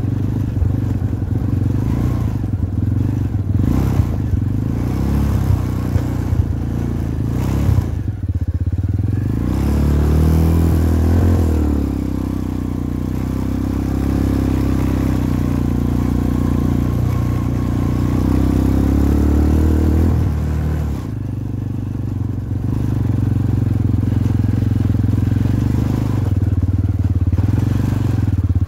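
250cc Jinling ATV engine running while under way on a dirt track, its pitch rising and falling with the throttle. A few sharp knocks and rattles come in the first several seconds.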